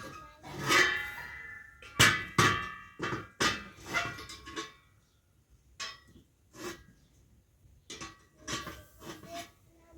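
A series of sharp knocks and clinks of hard objects, the loudest in the first half, some ringing briefly, with lighter knocks after.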